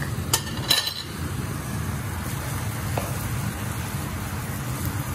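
Ground beef, peppers and onions sautéing in a frying pan while a wooden spatula stirs them, over a steady low hum. A couple of sharp clinks come in the first second.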